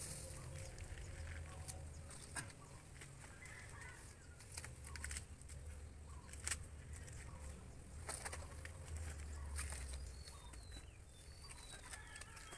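Dry banana leaves and banana-trunk strips rustling and crackling in the hands as they are laid onto a mushroom bed, with scattered sharp clicks. A few faint bird chirps come in near the end.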